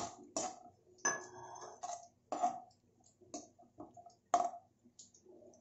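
Perforated metal skimmer scraping and tapping against a metal kadhai as dry fruits are stirred in hot ghee: a string of short, irregular scrapes and clinks, some ringing briefly.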